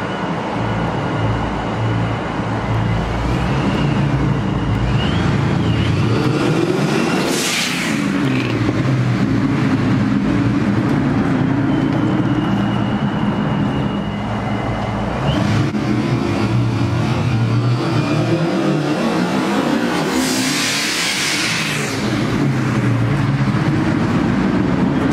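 Supercharged 4.6-litre V8 of a 2004 Mustang GT, with a Vortech supercharger and Bassani off-road X-pipe exhaust, rumbling as the car drives slowly by. A high whine comes and goes, and two brief rushes of noise come about a third of the way in and later on.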